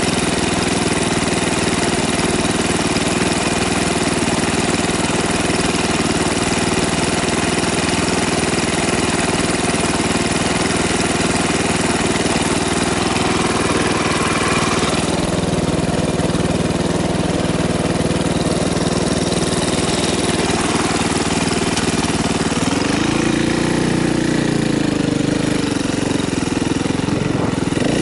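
KTM dirt bike engine running at low speed under the rider. Its pitch holds steady, then rises and falls a few times near the end as the throttle is worked.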